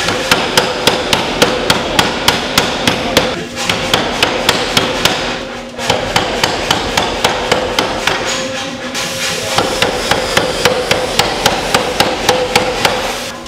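Power hammer pounding a red-hot steel bar, a fast even run of blows about four a second with a few short breaks, over a steady hum. The blows stop just before the end.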